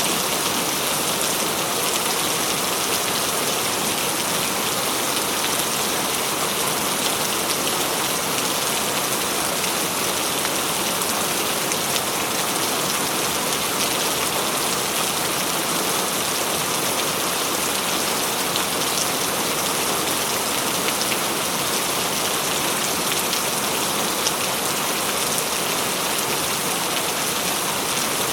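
Steady heavy rain, drops pattering and splashing on surfaces, with no thunder.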